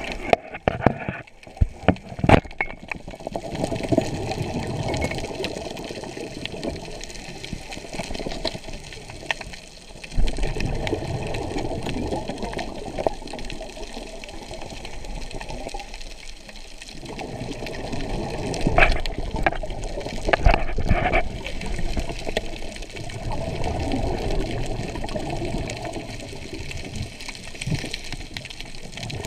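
Muffled underwater rush of water moving past a diver's camera, swelling and fading as he swims, with a few sharp clicks about two seconds in and a couple of louder knocks later on.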